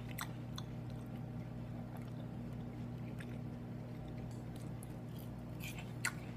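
A person chewing a mouthful of watermelon with the mouth closed: faint, scattered wet clicks and smacks, over a steady low hum.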